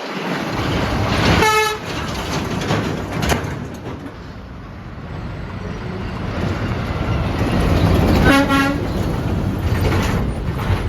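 Two short truck horn blasts, one about a second and a half in and a lower-pitched one about eight seconds in, over the engine and tyre noise of passing traffic that builds to its loudest around the second blast.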